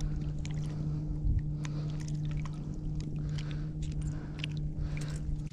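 Light water splashes and drips with scattered small wet clicks as a redfish is worked in a landing net at the surface, over a steady low hum.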